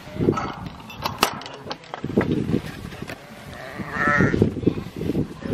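A flock of sheep with young lambs moving through long grass, with one wavering bleat about four seconds in.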